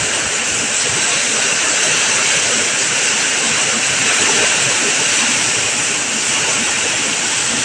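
Heavy tropical downpour: rain pouring steadily with a loud, even hiss.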